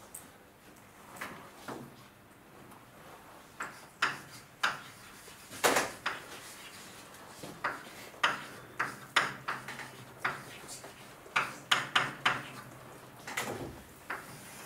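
Writing on a board: irregular taps and short scrapes, sparse at first and coming in clusters from about four seconds in.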